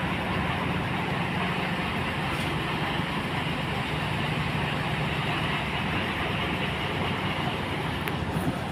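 Heavy diesel engines idling steadily with a low, even hum.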